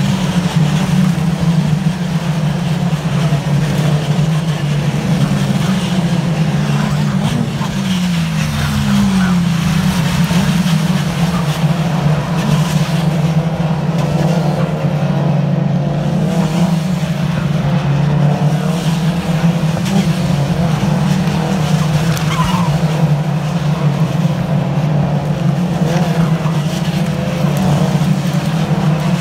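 MINI Challenge race cars running past and through a corner in a pack, engines revving under a continuous low drone, with engine notes falling in pitch about seven to nine seconds in.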